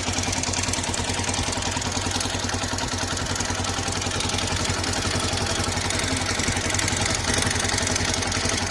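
TVS Sport BS6 motorcycle's single-cylinder four-stroke engine idling with a steady, rapid pulsing beat and some mechanical clatter. This is the engine noise the owner treats as a fault.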